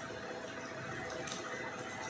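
Steady hum of an air compressor running, with a soft rustle of foam packaging wrap being handled about a second in.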